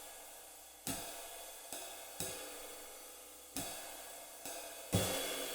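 Light 20-inch ride cymbal fitted with eight rivets, played in a slow swing ride pattern. Each stroke is followed by a long, slowly fading sizzle from the rivets. The last stroke, near the end, is the loudest.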